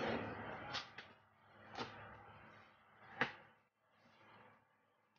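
Hands working at the top flaps of a large cardboard TV carton: scraping and rustling on the cardboard with three sharp knocks, the last, just after three seconds in, the loudest.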